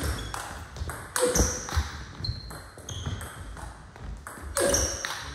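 Table tennis rally: the ball clicks sharply off the rackets and the table in quick succession. The sound grows louder about a second in and again near the end.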